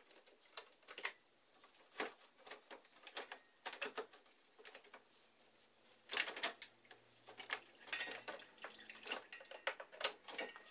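Light, irregular clicks and rattles of plastic and metal being handled as the fan shroud is worked loose from behind the radiator.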